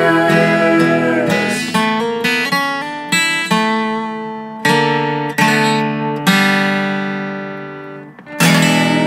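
Background music: acoustic guitar, with plucked notes and chords that each ring out and fade before the next is struck.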